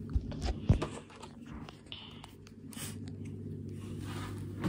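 Phone microphone handling noise as the phone is picked up and moved: a few knocks and rubs in the first second, the loudest just under a second in, then faint rustling and a low steady hum.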